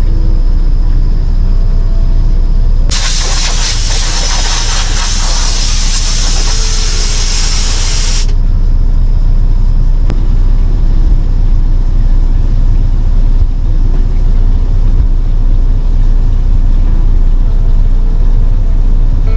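Steady low rumble of a semi truck's diesel engine idling, heard inside the cab. About three seconds in, a loud hiss starts, runs for about five seconds, then cuts off sharply.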